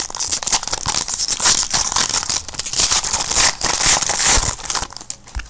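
Foil wrapper of a football trading-card pack being torn open and crinkled in the hands, a dense crackling rustle that stops shortly before the end.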